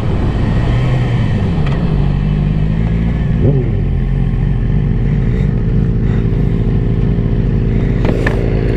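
Suzuki GSX-R sportbike engine heard from the rider's seat as the throttle is rolled off and the bike slows, its pitch dropping, with a brief rise in revs about three and a half seconds in. It then settles into a steady idle as the bike comes to a stop.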